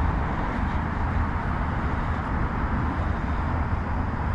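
Wind buffeting the microphone: a steady, unbroken rush of noise, heaviest in the bass.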